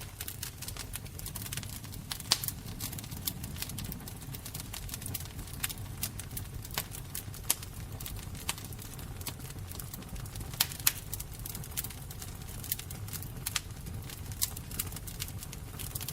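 Fire crackling: sharp, irregular pops and snaps, a few much louder than the rest, over a steady low rumble.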